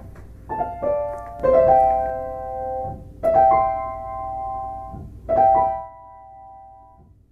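Background piano music: single notes and chords struck a second or two apart and left to ring out, fading away near the end.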